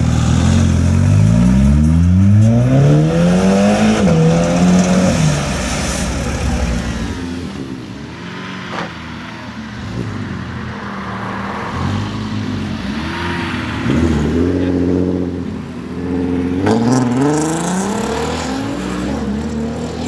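Volkswagen Golf engine revving hard: a long rise in pitch over the first few seconds, then quieter running with a single sharp crack about nine seconds in, then several shorter revs rising in pitch later on.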